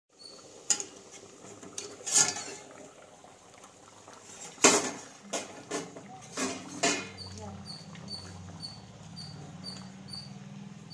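A steel lid and a metal ladle clank against an aluminium cooking pot, with a run of sharp clanks through the middle, the loudest about halfway. After that comes a softer steady sound of the ladle stirring the simmering bitter gourd curry.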